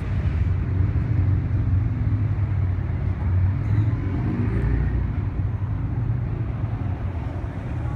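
Motorcade of police motorcycles and SUVs driving past: a steady low rumble of engines and tyres, with one vehicle's sound sliding down in pitch as it passes about halfway through.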